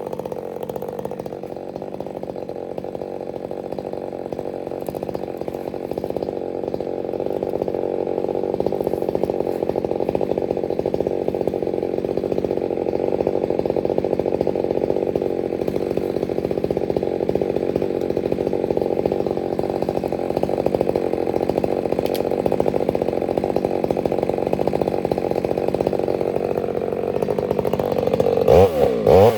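Ported Stihl MS 462 two-stroke chainsaw with a 28-inch bar held at full throttle in a cut through a large wet spruce log, its note steady and pulling hard. Near the end the engine pitch dips and then climbs sharply as the saw revs up free.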